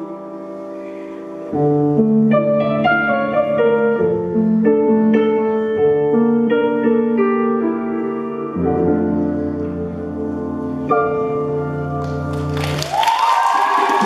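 Instrumental music with piano-like notes over a held bass line, soft at first and filling out about a second and a half in. About a second before the end, a loud hissing wash and a rising tone cut in over it.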